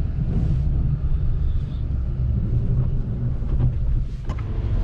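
Plow truck engine running steadily, a low, even rumble, with a short click about four seconds in.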